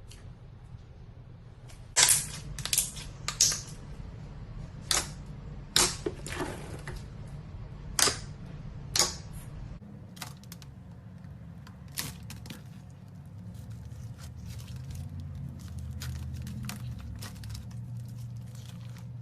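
Objects being handled: about eight sharp clicks and crackles over several seconds, then many fainter quick clicks, over a steady low hum.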